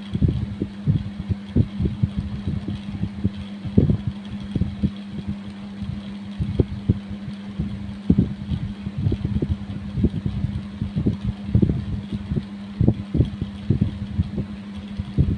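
Repeated short strokes of a coin scraping over the skin of the chest in kerokan, several a second at an uneven pace, over a steady low hum.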